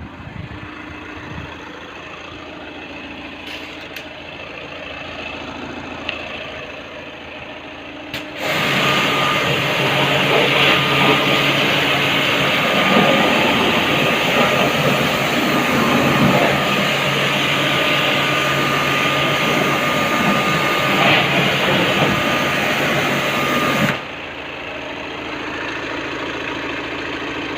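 Car engine idling; about eight seconds in, a high-pressure washer starts spraying water onto the engine, a loud hiss with a steady whine, which cuts off suddenly about sixteen seconds later, leaving the engine idling.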